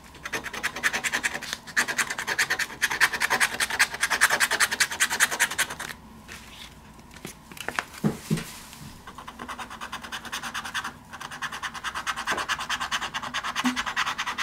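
A scratch-off lottery ticket being scraped clear with rapid back-and-forth strokes, the latex coating rasping off the card. The scratching pauses for a few seconds in the middle, then starts again.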